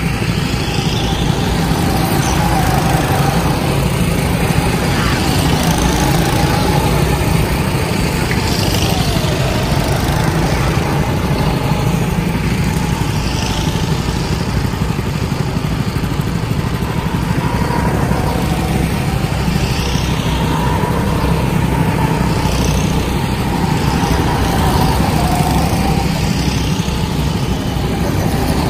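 Go-kart engines running as karts drive laps around the track, a steady drone whose pitch rises and falls as the karts accelerate, slow and pass.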